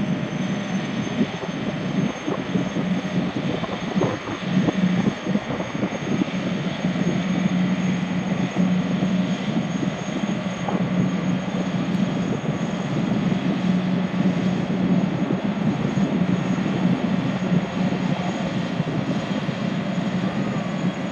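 Boeing Jetfoil 929's Allison gas turbines running steadily: a constant high whine over a strong low hum and a broad rushing noise.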